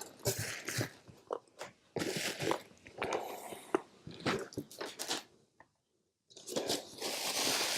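Plastic packaging crinkling and rustling, with light clicks and knocks of small plastic RC car parts being taken out of a box and handled; a short pause about six seconds in, then a steadier rustle.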